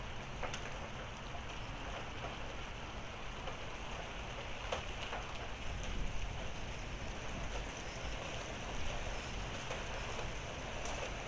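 Rain falling steadily with pea-size hail mixed in, a few faint sharp ticks of hailstones standing out from the even hiss.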